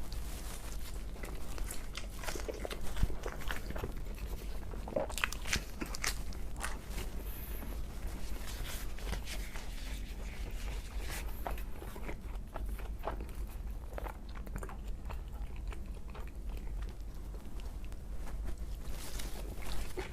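Close-miked eating: repeated crunchy bites and chewing, an irregular run of crisp crackles and clicks, with the loudest bite about three seconds in.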